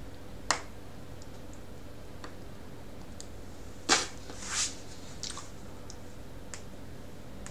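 Low steady electrical hum with a few small scattered clicks. A sharp click comes about half a second in, and a louder click just under four seconds in is followed by a short hiss.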